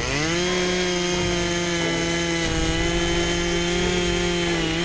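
Gas-powered ice auger's small engine revving up quickly, then running at a steady high speed while drilling a hole through the ice.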